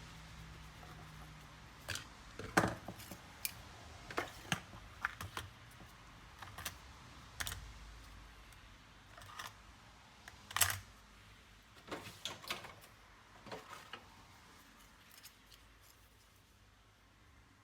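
Irregular clicks and taps of small plastic and metal parts being handled while working on a laptop's RAM and hard drive, with a couple of sharper knocks; they die away in the last few seconds.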